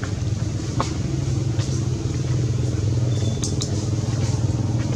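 A steady low engine hum, with a few short sharp clicks over it.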